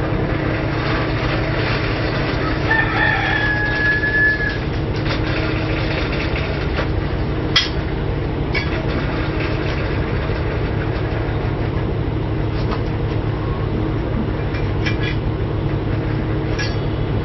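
A rooster crows once, about three seconds in, over a steady mechanical drone. A few sharp knocks follow later, the loudest about seven and a half seconds in.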